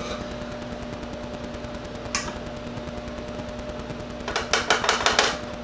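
Plastic Tupperware canisters with orange lids clicking and knocking as they are picked up and handled: a single click about two seconds in, then a quick cluster of knocks near the end. A steady low hum runs underneath.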